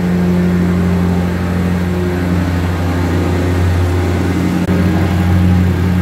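Engine-driven vibratory plate compactor running steadily, tamping a floor of crushed-stone screenings; an even, loud engine-and-plate drone.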